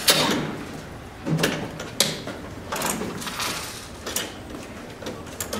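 Handling clatter as the rig is taken apart: scattered clicks and knocks, about one a second, of plastic pipe fittings and parts being unlatched and lifted off, over a light rustle.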